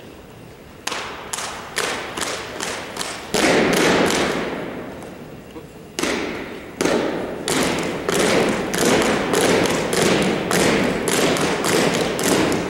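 A drill team stomping and clapping in unison on a hardwood gym floor, each beat a sharp echoing hit. A few spaced beats come first, then two big loud hits, and from about seven seconds in a steady quick rhythm of about two to three beats a second.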